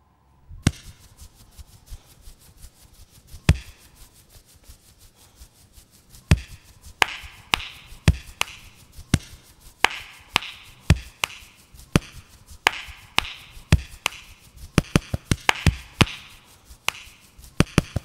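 Hand pats and slaps on a bulldog's body, picked up close by a microphone and made into a percussive beat. It starts with a few scattered thumps and grows into a denser, steady rhythm of low thuds and sharper clicks.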